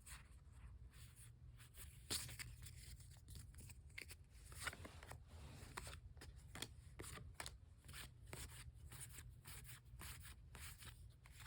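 Soft handling of Pokémon trading cards and booster-pack wrappers: an irregular string of small clicks, rustles and crinkles.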